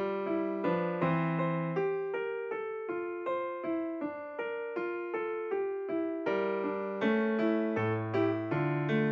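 Background music: a light electric piano melody, notes struck at an even pace of about three a second.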